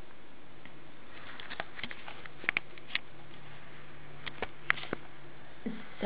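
Room tone in a pause between spoken lines: a steady hiss with a faint low hum, and a scattering of small clicks and ticks in the middle of the pause.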